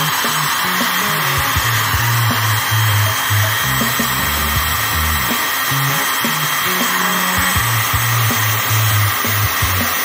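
Electric heat gun running steadily, its fan blowing hot air in an even hiss. Background music with a low bass line plays underneath.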